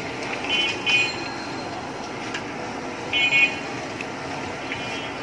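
Eggplant and potato fritters sizzling steadily in a wok of hot oil. Two short, high squeals cut in, near the start and about three seconds in.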